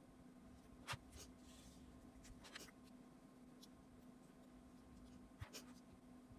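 Marker pen drawing on graph paper: faint scratching strokes, clearest about a second in, around two and a half seconds and again near the end.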